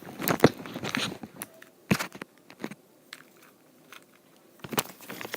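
Scattered sharp clicks and crackling rustles of handling, busy for the first second, sparse and quiet through the middle, and picking up again near the end.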